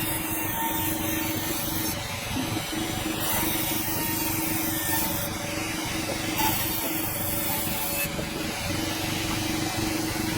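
Sawmill cutting through a dense hardwood log: a steady machine hum under the hiss of the blade in the wood. The high hiss drops away and returns every few seconds.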